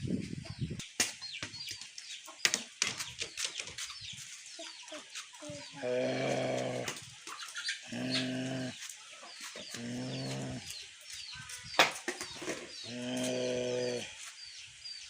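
Chickens calling: short high peeps repeat throughout, and four drawn-out low calls of about a second each come from about six seconds in. Scattered sharp knocks and clicks fill the first few seconds.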